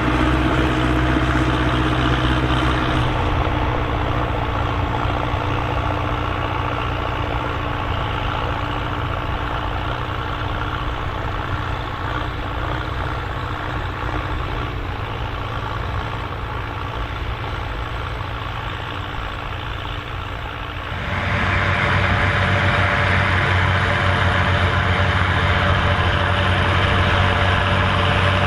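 Massey Ferguson tractor engines running steadily while ploughing. About 21 seconds in the sound gets suddenly louder and harsher, as a tractor comes closer.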